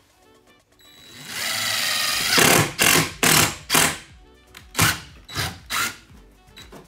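Cordless power drill drilling into a wooden strip clamped to a bus's sheet-metal wall: it runs steadily for about a second and a half, then in about seven short trigger bursts. Faint background music underneath.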